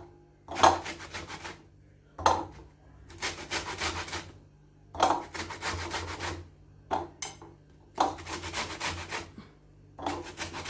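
Citrus peel rasped against a fine hand grater in repeated scraping strokes, with short pauses between them, as the outer yellow zest of lemon and orange is grated off.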